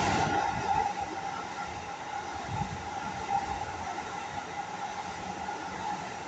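Keisei 3100 series electric commuter train passing through without stopping, its wheels running over the rails with a steady whine. Loudest at first, then fading slowly as the last cars go by.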